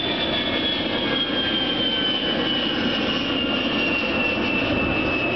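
Twin General Electric TF34 turbofan engines of an A-10 Thunderbolt II in flight: a steady jet roar with a high whine that slowly falls in pitch as the aircraft flies past.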